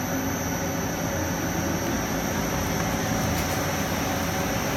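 Wood polishing and sanding machine running steadily, its large brush roller spinning under motor drive: an even machine noise with a few steady held tones.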